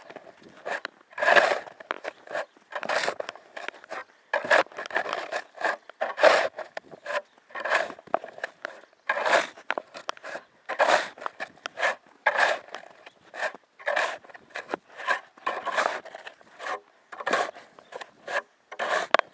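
Snow shovel cutting into deep snow and scraping, one stroke about every second and a half, with smaller crunches between.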